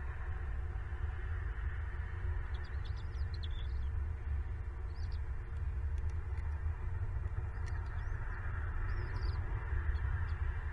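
Faint, short, high-pitched bird chirps in a few scattered clusters over a steady low rumble.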